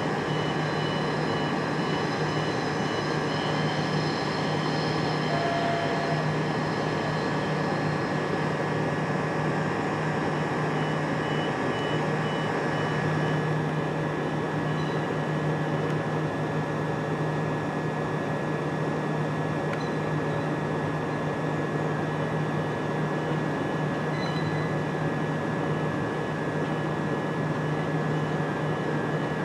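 Electric multiple-unit train standing with its on-board equipment running: a steady low hum with several steady high tones. A higher whine fades away about halfway through.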